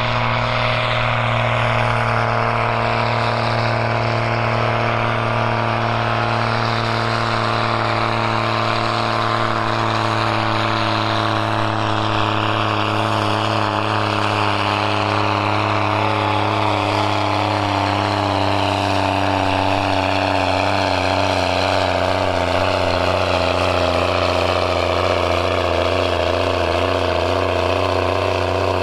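Case IH Puma tractor's six-cylinder diesel engine running hard under full load while pulling a weight-transfer sled: a steady, deep drone whose pitch wavers and sags slightly over the last several seconds.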